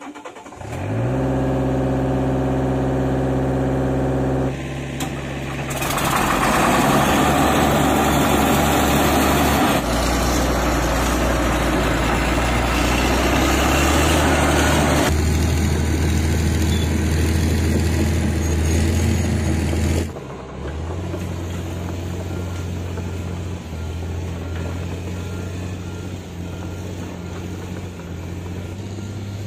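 Diesel engines of heavy earthmoving machines running, in several short stretches: a Komatsu PC45 mini excavator close by, then a Caterpillar D6G crawler dozer running loudly, then a steadier, quieter engine hum for the last third.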